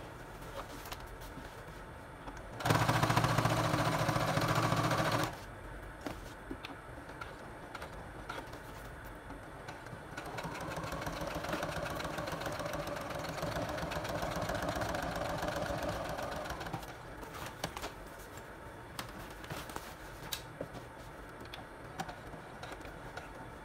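Brother Project Runway sewing machine stitching a patch onto a leather vest, in two runs. A loud run of about two and a half seconds comes a few seconds in, then a quieter run of about six seconds in the middle, with scattered light clicks between and after.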